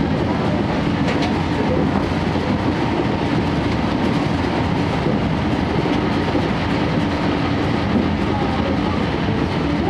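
Steady running noise inside a 12-series passenger coach moving at speed: wheels rumbling on the rails, with the steady hum of the coach's diesel generator engine underneath.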